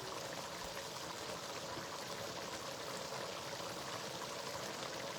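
Spinach stew cooking in red palm oil in a pot on the stove, a steady low hiss of simmering.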